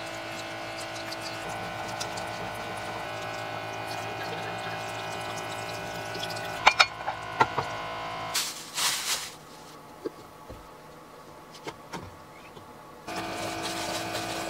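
A small electric pump faucet humming as it runs water into a stainless steel sink while dishes are rinsed, with sharp clinks of metal and plates. The pump stops about eight seconds in, leaving a short splash and a few light taps, and starts humming again near the end.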